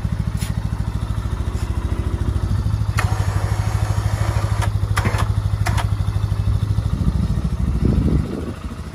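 2004 Polaris Sportsman 400's single-cylinder engine idling with a steady rapid thumping, with a few sharp metallic clicks about halfway through and a brief change in the engine note near the end.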